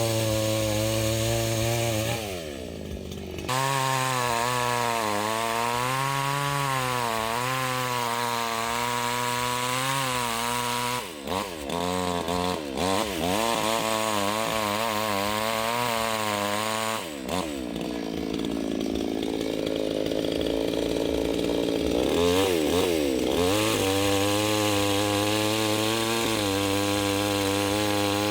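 Chainsaw running under load, its pitch wavering as it cuts wood. The engine drops off and climbs back up several times as the throttle is released and reapplied.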